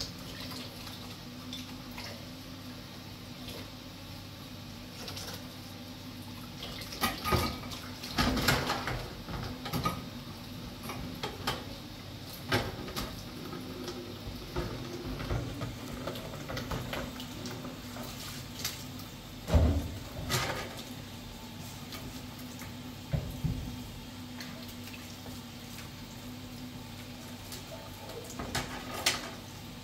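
Water running or splashing over a steady low hum, with scattered knocks and clatters like dishes being handled. The clatters cluster about a quarter of the way in and again about two-thirds through.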